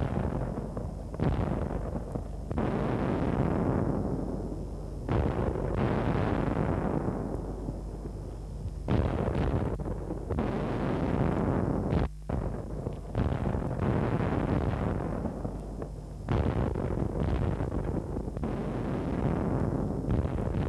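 Artillery shell explosions: a series of sudden booms every one to four seconds, each trailing off in a long rumble that overlaps the next.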